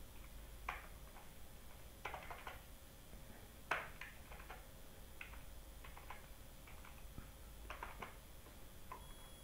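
Computer keyboard keys pressed at an irregular pace: faint scattered clicks, some in quick little runs, with one louder keystroke a little under four seconds in.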